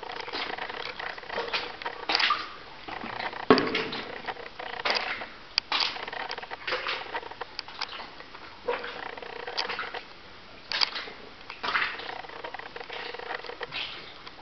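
Footsteps through shallow water and over wet rock on a mine gallery floor: an irregular series of splashes and scrapes about once a second, with a louder knock about three and a half seconds in.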